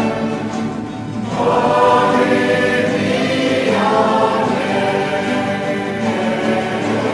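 A choir singing in many-voiced harmony, holding long chords, with new chords coming in about a second in and again just past the middle.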